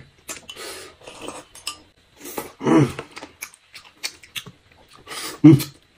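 Chopsticks clicking and scraping against plates and bowls while food is picked up and wrapped in thin pancakes. Two louder short sounds come about three seconds in and near the end.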